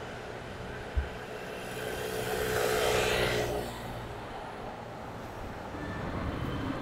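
A motor vehicle passing by on a city street, its noise swelling to a peak about three seconds in and then fading, over a steady traffic rumble. A brief low thump comes about a second in.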